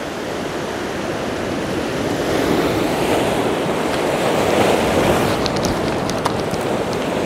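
Ocean swell surging and breaking on the rocks below, a steady rushing wash that builds to a peak about halfway through.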